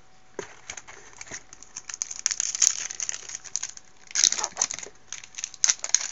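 Foil wrapper of a trading-card pack crinkling and crackling as it is handled and torn open: a rapid run of sharp crackles, with louder bursts about two seconds in and just after four seconds.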